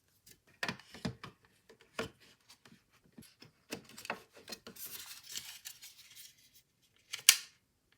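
A hard drive being handled and fitted into its plastic drive cradle: rubbing, scraping and light clicks, with a sharp click about seven seconds in as it seats.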